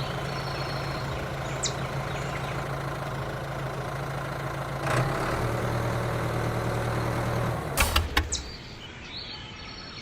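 Vehicle engine or motor running steadily at idle, with a low hum that drops slightly in pitch about halfway through. A few sharp knocks come near the end, after which the running sound fades.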